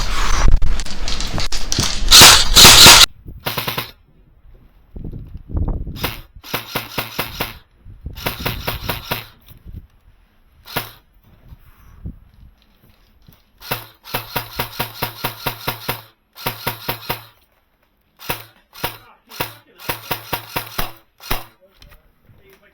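Airsoft gun firing in repeated bursts of rapid shots, some short, some about two seconds long, with a steady low motor hum under each burst. A loud rushing noise fills the first three seconds.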